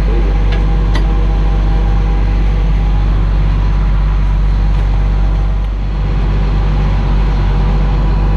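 Engine of the pump service truck running steadily with a low, even hum, with two light clicks about a second in.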